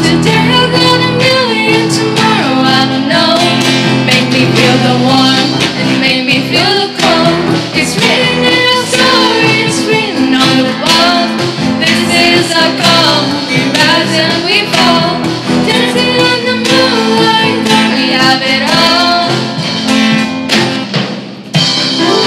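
Student band playing live: girls singing a melody into microphones over strummed acoustic guitars and a drum kit.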